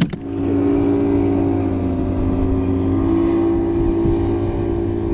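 A motorboat engine running at speed close by: a loud, steady drone as the boat passes without slowing down.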